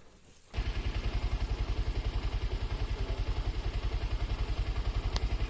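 A small engine starts abruptly about half a second in and runs with a steady, rapid low pulse, with a single sharp click near the end.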